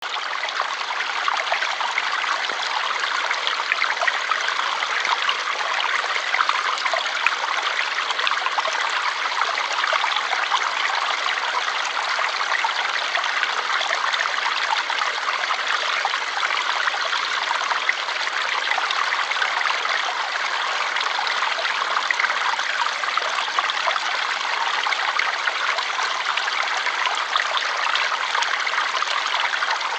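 Flowing water, a steady, even rush that is bright with little low rumble.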